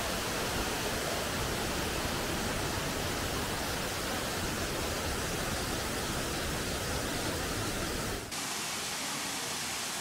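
Steady rushing of water pouring over tufa cascades, an even, dense wash of sound. About eight seconds in it changes abruptly to a lighter hiss with the low rumble gone.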